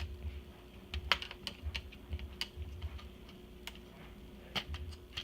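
Scattered small clicks and taps of a screwdriver and plastic parts while screws are taken out of an iMac G3's plastic cover, over a faint steady hum.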